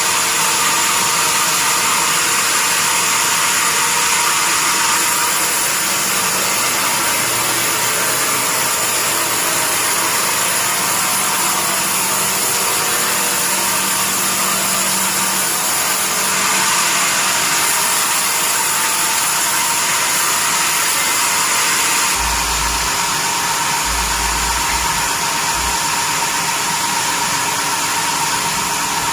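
Sawmill bandsaw running, a loud steady noise with a high, even whine. About three-quarters of the way through the sound turns harsher, with a few short low thumps.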